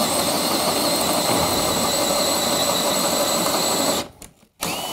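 Cordless drill boring a flat-bottom hole into a wooden wall bottom plate with a Forstner-style bit, running steadily at full speed with a high motor whine. It stops about four seconds in.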